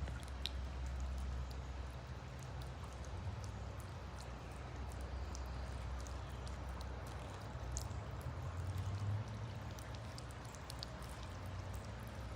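Small floating solar fountain pump spraying water into a bird bath: a steady splashing with many small drops pattering back into the water, over a low rumble.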